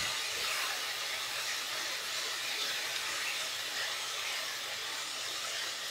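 Spice masala with ginger-garlic paste and a splash of water sizzling steadily in hot oil as it fries in a pan.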